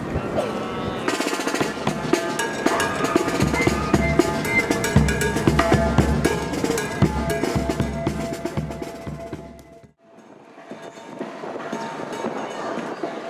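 A marching band's snare and bass drums playing with some held horn notes. The music stops sharply about ten seconds in, and a steady rushing noise rises after it.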